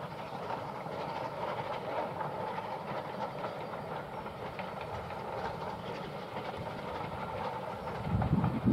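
Distant steam locomotive hauling a passenger train, a steady rumble of wheels and exhaust carrying across the fields. Wind starts buffeting the microphone near the end.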